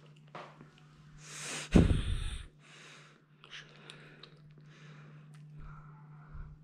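Heavy breathing close to the microphone: a rising intake of breath, then a loud short burst of breath with a low rumble about two seconds in, followed by several softer breaths.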